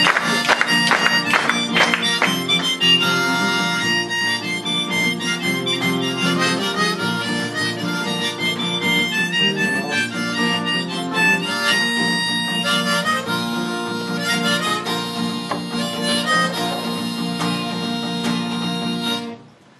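Harmonica played in a neck rack over a strummed acoustic guitar: an instrumental break of held harmonica notes above steady chords. The music stops abruptly just before the end.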